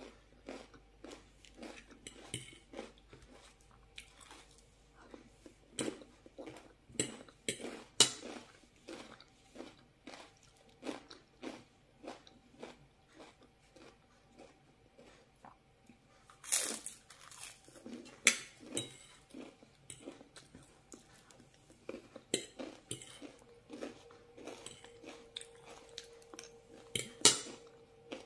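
Close-up crunching and chewing of a crisp cracker topped with mashed avocado: a continual run of small crisp crunches, with a handful of much louder bites.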